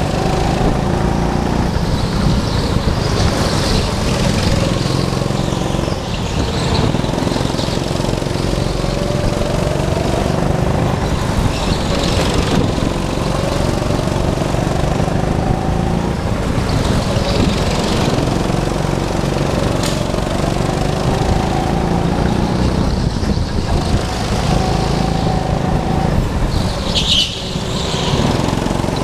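Go-kart engine running hard, its pitch rising and falling with throttle through the corners. A brief high squeal near the end.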